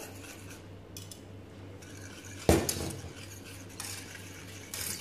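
Wire whisk stirring milk in a stainless steel saucepan, with a sharp knock about halfway through and a lighter one near the end.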